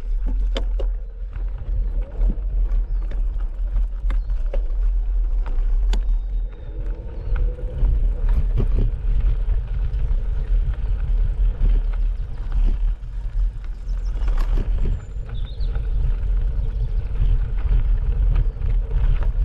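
Bicycle riding on a gravel track: heavy wind rumble on the microphone, with tyres crunching over gravel and scattered clicks and rattles.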